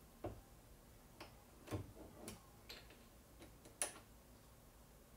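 About half a dozen faint, separate clicks and taps of a brass 338 Lapua case being handled at a single-stage reloading press and set into its shell holder, the sharpest click about four seconds in.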